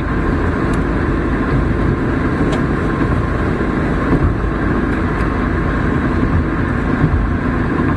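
Car driving at highway speed: steady tyre and engine noise.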